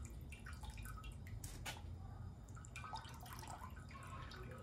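Beef consommé dripping off a dipped flour tortilla back into a pot of broth: faint, irregular drips and small splashes.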